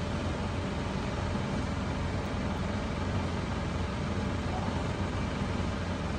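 Steady low hum with an even hiss of background noise, unchanging throughout.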